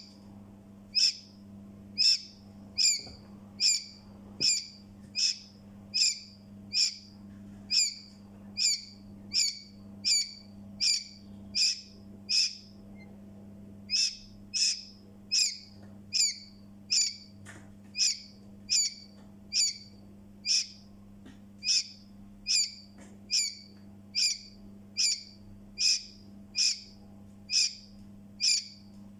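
Newborn chick peeping steadily: short high peeps about three every two seconds, with a pause of about a second and a half near the middle. A faint low hum runs underneath.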